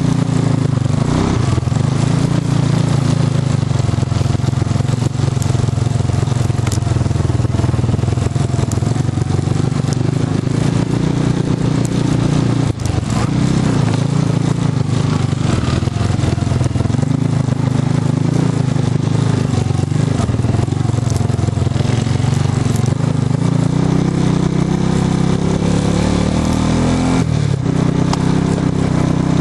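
ATV engine running continuously while riding a dirt trail, its note drifting up and down with the throttle, easing off briefly about thirteen seconds in and again near the end.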